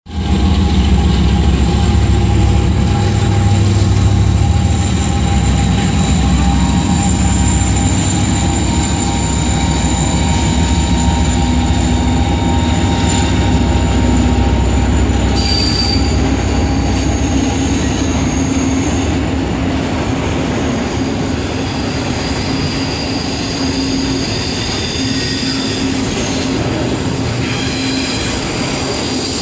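Union Pacific double-stack intermodal train passing: the diesel locomotives' low engine rumble is loudest in the first half and eases off after about eighteen seconds as the container cars roll by. Steady high-pitched wheel squeal and rolling rail noise run over it.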